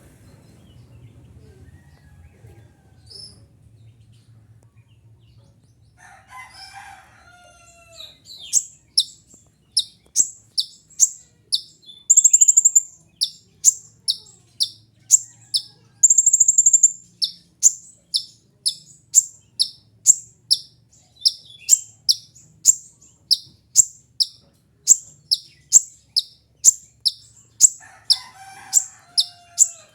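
Kolibri ninja sunbird singing: a long series of short, sharp high notes about twice a second, broken twice by a longer held note. A short lower, chattering call comes before the song starts and again near the end.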